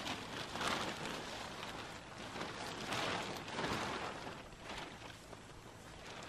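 Thin plastic sheeting crinkling and rustling as it is unfolded and shaken out by hand, in several louder swells.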